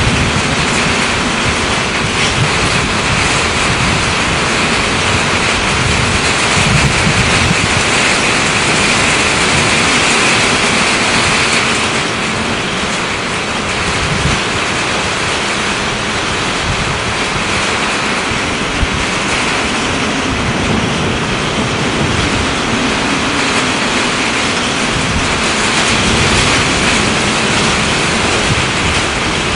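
Strong thunderstorm wind blowing hard and steadily, with gusts buffeting the microphone in an uneven low rumble.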